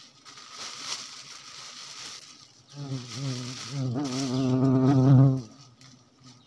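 A bee buzzing close to the microphone, its pitch wavering, from about three seconds in until it stops abruptly a couple of seconds later; before it, a plastic bag and leaves rustle.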